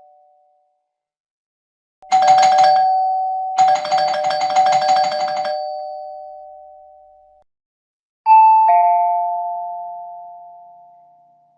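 Doorbell ringing. A short rattling ring about two seconds in is followed by a longer one that fades out. Later comes a two-note ding-dong chime, high then low, that dies away slowly.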